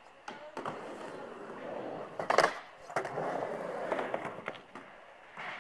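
Skateboard rolling on a mini ramp, with the wheels' steady roll broken by several sharp clacks of the board; the loudest clack comes a little before the middle.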